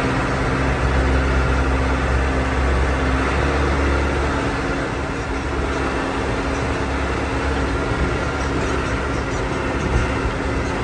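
A vehicle engine running steadily, with a deep rumble that eases about four seconds in.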